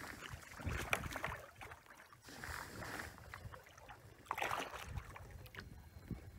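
Choppy lake water lapping and slapping against a plastic kayak hull in uneven swells.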